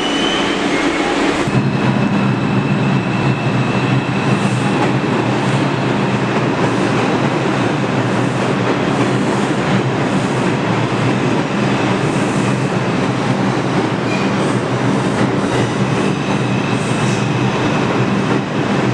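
New York City subway train running along the station platform: a steady loud rumble and rattle of the cars, with a deeper hum setting in about a second and a half in, clicks of the wheels over rail joints, and a faint high whine at times.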